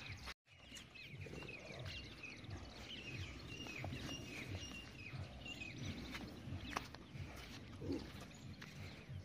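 Birds calling over and over in short, downward-sliding chirps, with a low pulsing rumble underneath and a few scuffs and knocks as the bulls' hooves kick through dry sand. The sound cuts out for a moment just after the start.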